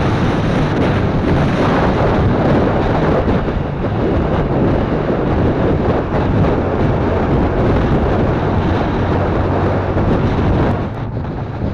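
Heavy wind rushing over the action camera's microphone on a moving Yamaha FZ150i motorcycle, with the bike's single-cylinder engine running steadily underneath. The noise drops somewhat near the end.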